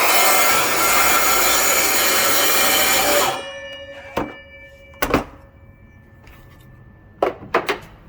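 DeWalt track saw running through a wooden stair riser board for about three seconds, then the trigger is let go and the blade spins down with a fading whine. A sharp knock follows about a second later, another about five seconds in, and three quick knocks near the end.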